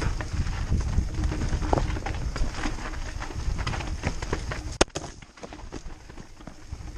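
Mountain bike clattering down a rocky trail: tyres knocking over rock and the bike rattling, over a low rumble. A sharp loud clack comes just under five seconds in, and the clatter is quieter after it.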